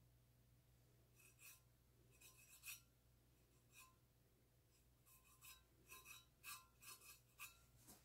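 Faint, short scratchy rubbing strokes of a fingertip working metallic paint over the painted surface of a stainless steel tumbler, in two irregular runs with a pause between.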